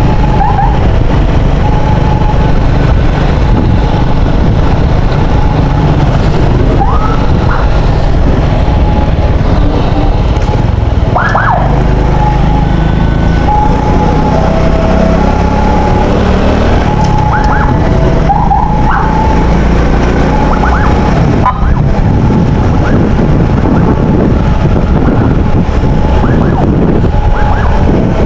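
Ambulance siren sounding in short steady tones and quick rising sweeps over a loud, constant rumble of engine, road and wind.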